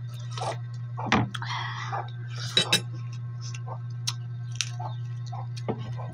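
Eating sounds of a meal of mussels and rice: a metal spoon clinks against the dishes, loudest as two quick clinks a little over two seconds in, with small mouth and handling noises between, over a steady low hum.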